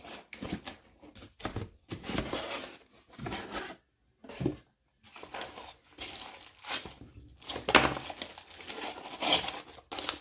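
Unboxing a smart lock: packaging rustling and crinkling, with light clatters as the heavy metal lock parts are handled, and a short pause about four seconds in.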